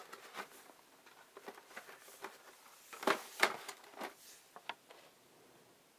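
Hands handling and turning a cardboard model-kit box: a string of light, irregular rubs and taps on the cardboard, loudest about three seconds in and dying away near the end.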